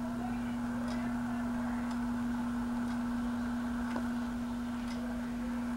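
Animated Santa figure's electric motor humming steadily, with a faint click from its moving mechanism about once a second.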